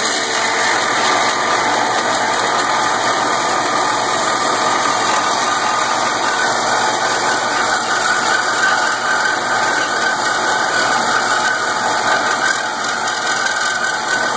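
Metal-cutting band saw running steadily, its blade cutting through rectangular metal tubing.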